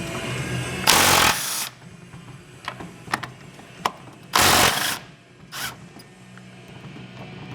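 Ratchet wrench working a bolt on a car's front suspension: two short bursts of ratcheting, about one second in and about four and a half seconds in, with a few metallic clicks of tools between them.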